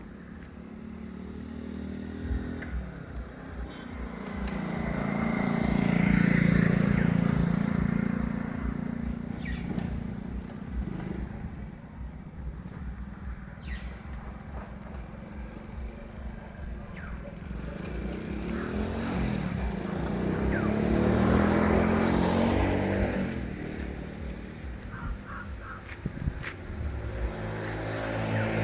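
Motor vehicle engines, motorcycle-like, going by twice. Each swells up and fades over several seconds, the first about six seconds in and the second about twenty seconds in.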